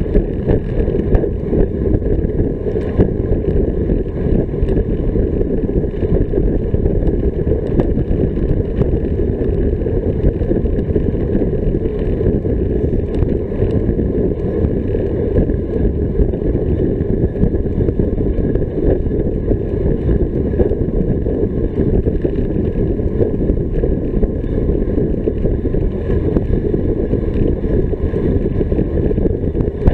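Wind noise on a bicycle-mounted action camera's microphone while riding at speed: a steady, loud, low rumble.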